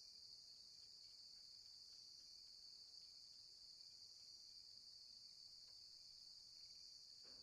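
Faint, steady high-pitched chorus of crickets in a night ambience bed, barely above silence.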